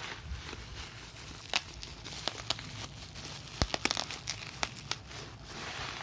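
Bubble wrap being squeezed and crinkled, with sharp pops of bursting bubbles at irregular moments, a quick cluster of them about midway.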